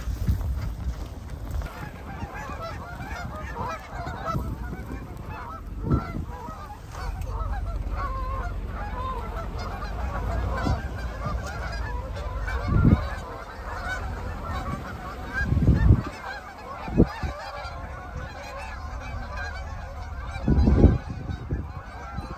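A large flock of Canada geese honking, hundreds of birds calling over one another without a break as the flock lifts off the pond and flies away. Several short, low thumps break through, the loudest about two-thirds of the way in and near the end.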